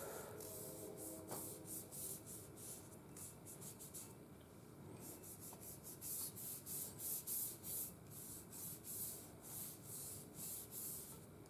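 Soft-bristled brush scrubbing back and forth along a Mossberg 590 Shockwave's oiled barrel to work off light surface rust: faint, quick rhythmic swishing, about three strokes a second, with a brief pause about four seconds in.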